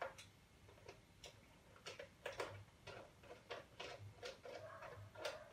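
Quick, irregular small clicks and knocks from a ring light's phone holder and mount being handled and adjusted by hand.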